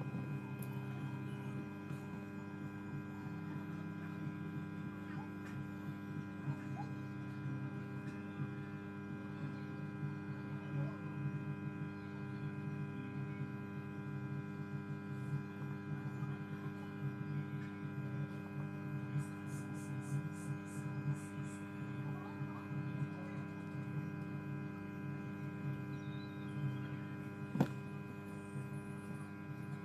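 Steady electrical mains hum, a stack of unchanging tones, with a short run of faint high ticks about two-thirds of the way through and a single sharp click near the end.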